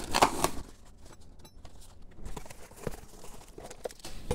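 Brown plastic packing tape ripped off a cardboard box in a short burst at the start, followed by faint, scattered clicks and rustles of handling.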